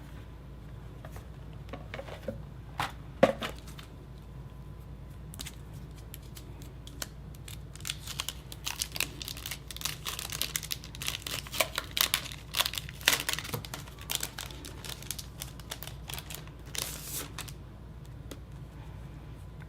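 Packaging crinkling and rustling as it is handled by hand, with a couple of sharp knocks about three seconds in and a busy stretch of crinkling from about eight to seventeen seconds in.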